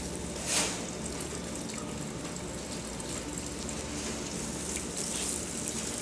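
Water running steadily into a small ornamental pond, a continuous trickling rush, with one brief louder swish about half a second in.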